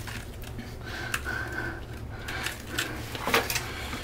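Screwdriver scraping and digging old toilet wax ring residue out of a toilet flange: scattered short scrapes and taps, with a sharper click a little over three seconds in. A low steady hum runs underneath.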